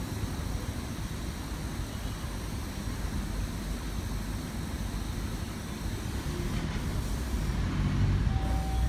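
Road traffic: a steady low rumble of passing vehicles. Near the end a heavy vehicle's engine grows louder.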